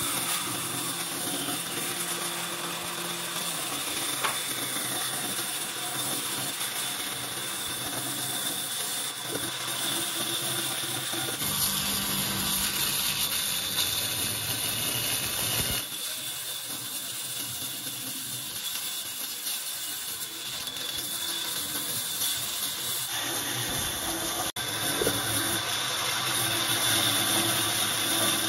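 Bandsaw running and cutting a curve through a thick hardwood board: a steady whirring hiss of the blade in the wood. The sound shifts abruptly a few times.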